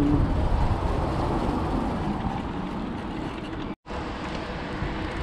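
Steady road traffic noise from a busy highway alongside, with wind rumbling on the microphone of a moving bicycle. The sound cuts out for a moment about four seconds in.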